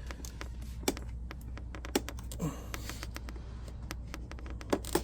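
Light, scattered clicks and taps of fingers and small parts as a display cable connector is eased out of its socket inside an opened iMac, a few sharper clicks standing out about a second in, two seconds in and near the end. A steady low hum runs underneath.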